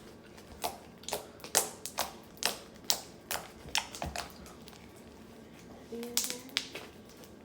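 Crisp clicking pops from homemade cloud slime being squeezed and pressed in the hands, about two a second, stopping about four seconds in.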